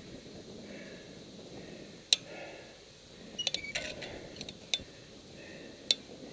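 A tower climber breathing heavily as he climbs a steel lattice tower. Sharp metallic clinks of his climbing hardware against the tower steel come once about two seconds in, as a quick cluster in the middle, and once more near the end.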